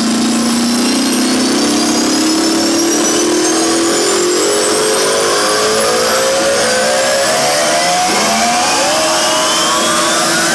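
Psytrance build-up on a festival sound system: a synth riser climbing steadily in pitch with no kick drum, building toward the drop.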